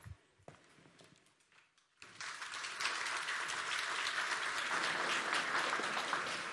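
Audience applauding. It starts suddenly about two seconds in, after a few faint scattered clicks, and fades near the end.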